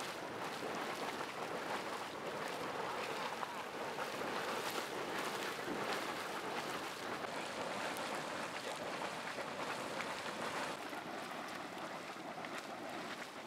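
Hot spring welling up vigorously through river stones: a steady, splashing rush of bubbling hot water.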